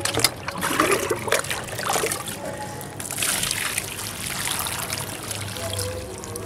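Water poured from a plastic bucket onto soil in a fabric grow bag, splashing and trickling. A few knocks come in the first two seconds, and the pour turns steadier and hissier about three seconds in.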